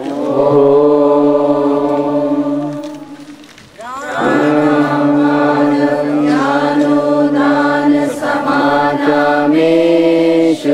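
A group of voices chanting Vedic Sanskrit mantras in unison. A long held note fades out about three seconds in, and after a short break the chant resumes, stepping between a few held pitches.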